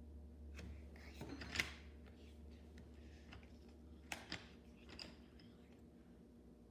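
A few faint, short clicks and rustles, like small objects being handled, over a steady low hum.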